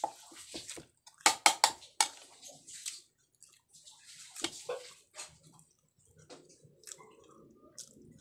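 A person eating close to the microphone: chewing and wet mouth smacks, with a quick run of loud sharp clicks about a second in and softer scattered clicks after.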